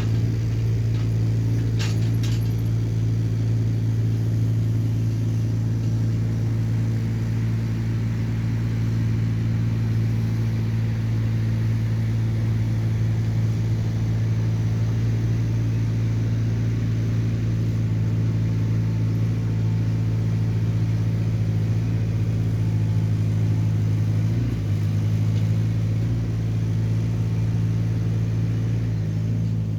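Hyundai small excavator's diesel engine running at a steady speed, with a brief clank about two seconds in.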